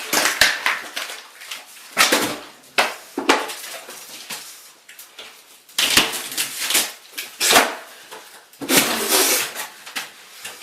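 Old bathroom ceiling being torn down: chunks of ceiling material and debris crash and clatter down in a series of irregular bursts, one every second or two.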